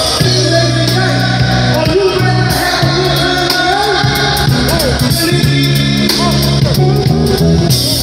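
Live gospel band playing: electric guitar, bass guitar, keyboard and drum kit together, with held bass notes under a steady beat and bending guitar lines.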